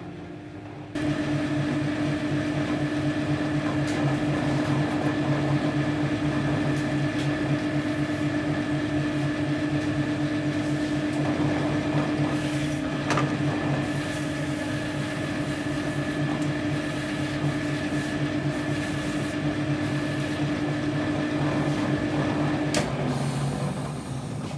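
Shoe finishing machine running: its motor and spinning wheels and brushes give a steady hum with a fixed tone. The hum starts suddenly about a second in and drops shortly before the end.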